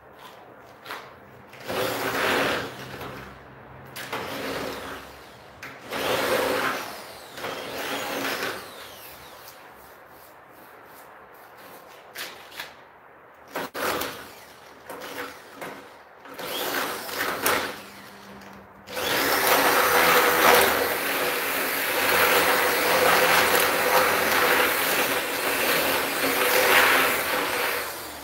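Corded electric drill drilling into a plastic window frame profile: several short runs of a second or two, a few brief clicks and spurts, then one long steady run of about nine seconds near the end.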